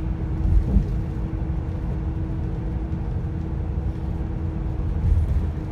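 Low rumble of a moving motor vehicle with a steady hum over it.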